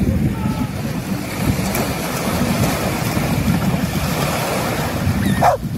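Small sea waves washing onto a sandy beach, with gusty wind rumbling on the microphone. A brief falling cry near the end.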